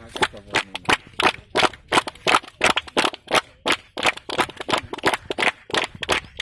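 A small group of people clapping their hands, close by: a quick, uneven run of sharp individual claps, several a second.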